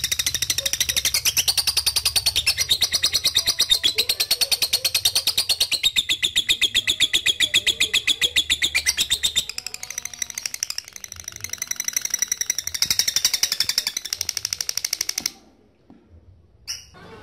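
Lovebird ngekek: a long, fast chattering trill of rapidly repeated high notes that stops abruptly about fifteen seconds in.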